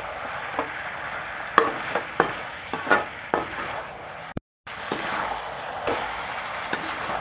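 Masala-coated chicken frying in a metal kadhai while a metal spatula stirs and scrapes it, a steady sizzle broken by several sharp clinks of the spatula on the pan. This is the bhuna stage, the chicken being fried with its spices. The sound cuts out completely for a moment a little past halfway.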